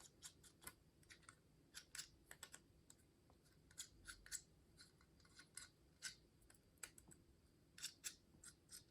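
Faint, irregular light clicks and clinks of small metal telescope adapter rings and parts being picked up and handled.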